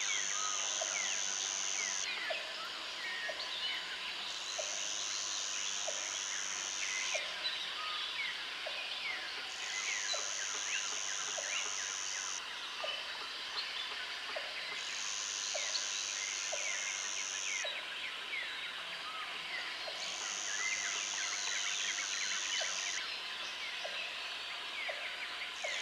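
Tropical jungle ambience: a dense chorus of bird chirps and calls, and an insect's high buzz that sounds in stretches of about two and a half seconds with pauses of about two seconds. Under it a short lower call repeats about once a second.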